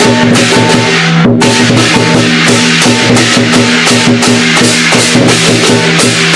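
Music with a steady drum beat over held pitched notes, with a short break about a second in.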